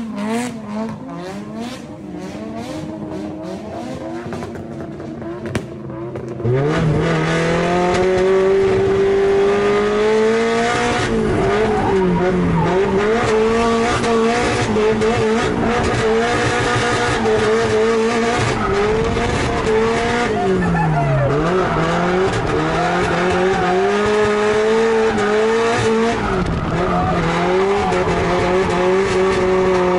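Drift car's engine heard from inside the cabin, held high in the revs, its pitch sagging and climbing back every few seconds as the throttle is worked through the slides, with tyre noise beneath. It starts suddenly about six seconds in, after a quieter stretch with scattered clicks.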